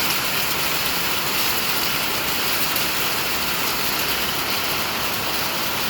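Heavy hail falling steadily: a dense, even hiss of countless impacts with faint sharper ticks through it.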